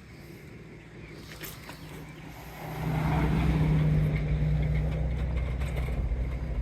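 A motor vehicle engine grows loud about three seconds in and keeps running with a steady low hum.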